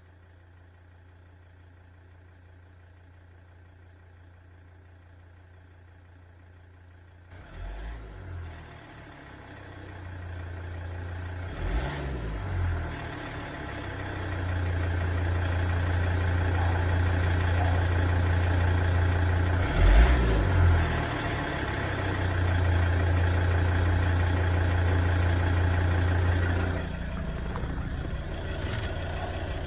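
Volvo XC90 engine idling with a knock at idle. The sound is faint at first, then much louder and fuller from about seven seconds in, with a few short louder bumps.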